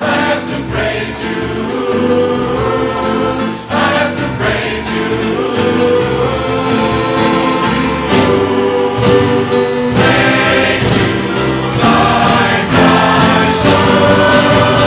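A large choir singing a song live, backed by a percussion band drumming a steady beat.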